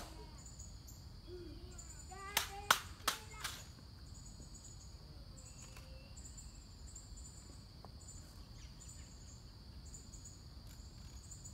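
Four sharp metallic clicks in quick succession, about two and a half to three and a half seconds in, as a ceremonial M14 rifle is handled during a guard-mount rifle inspection. Under them runs a steady high buzz of insects with rhythmic chirping.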